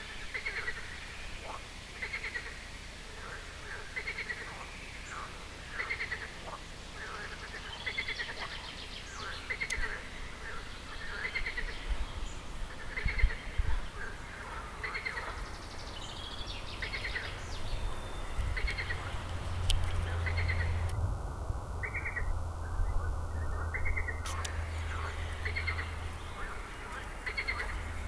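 A frog croaking over and over, a short call about once a second at a steady pace, with birds chirping higher above it. A low rumble comes in during the second half.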